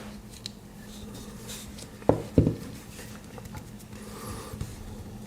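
Handling noise from prying a headphone driver apart with a pin: light scraping and rubbing, with two soft knocks about two seconds in.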